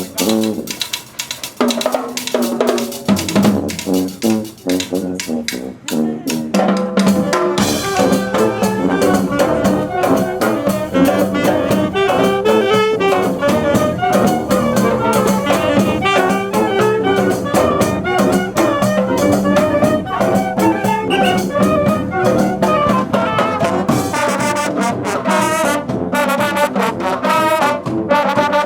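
Brass marching band playing a tune, trumpets and trombones over drums. For the first several seconds mostly the drums play, with short brass phrases, and about seven seconds in the full band comes in together.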